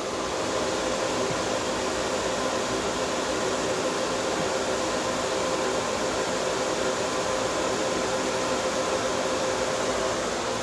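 Refrigeration compressor of a homemade R22 air-conditioning system running steadily: an even hum with a constant mid-pitched tone over a broad hiss.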